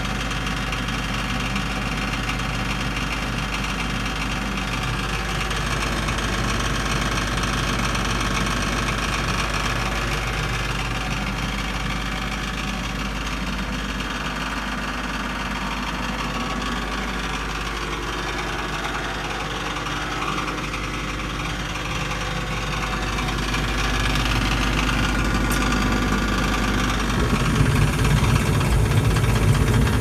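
2003 Carrier gas furnace running, its draft inducer motor making a loud, steady mechanical noise from worn bearings. A louder low hum comes in near the end.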